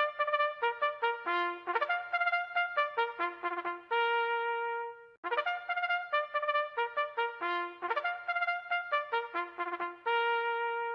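Solo trumpet playing a racetrack bugle call: two matching phrases of quick notes, each ending on a long held note.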